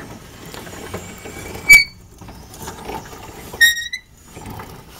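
Homemade wood-twisting machine's gear train and carriage running with a light mechanical clatter. Two short, high metallic squeaks cut through it, the second about two seconds after the first and slightly longer.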